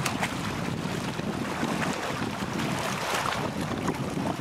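Wind buffeting the microphone over water lapping and splashing, a steady rushing noise.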